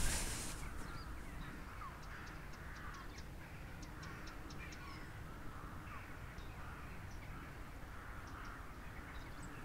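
Faint outdoor background with distant bird calls, including a quick run of short, high ticks about two to four seconds in.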